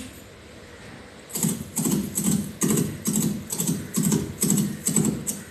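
Clip-clop of hoofbeats: even, trotting-paced knocks about two a second, each a dull thud with a sharp click, starting about a second in.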